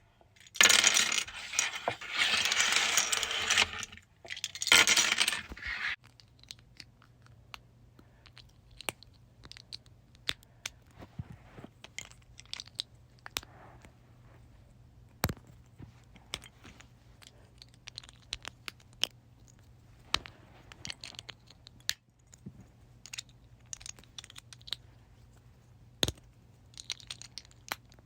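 Handfuls of plastic LEGO bricks dropped onto a table, clattering in three loud bursts for about six seconds. After that, individual bricks are snapped together, making scattered sharp clicks a second or two apart.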